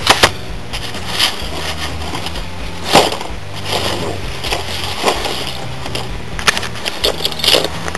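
Hard plastic gun-cleaning case being handled and opened: scattered sharp clicks and knocks, the loudest just after the start, about three seconds in, and a quick run of them near the end, over a steady low hum.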